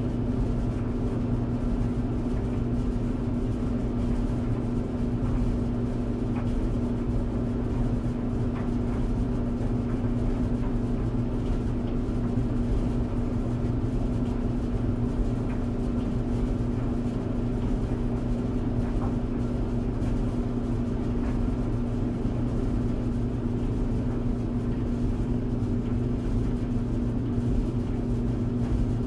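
Clothes tumble dryer running: a steady low motor hum with the drum's rumble, and a few faint ticks now and then.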